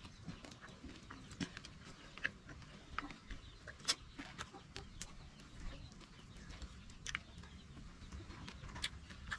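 Chewing food, with irregular sharp mouth clicks and smacks about once a second or so.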